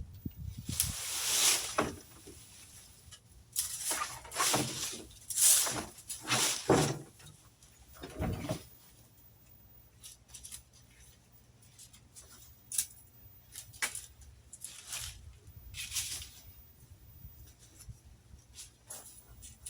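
Dry leaves and tree trimmings rustling and scraping in irregular strokes as they are raked and gathered into piles. The loudest strokes fall in the first seven seconds.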